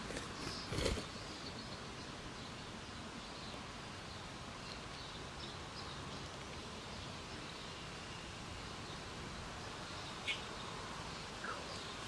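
Outdoor ambience with faint bird chirps in the background. About a second in, a brief loud flutter and knock as a red-bellied woodpecker lands on a wooden stump, with a single sharp click and a short chirp near the end.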